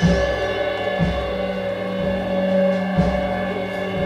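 Live experimental percussion music: a low, pitched thud about once a second, each one ringing on, over steady ringing higher tones.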